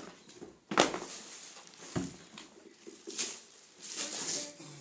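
Rustling and crinkling of gift packaging being handled and opened, with a sharp knock about a second in and a smaller one shortly after.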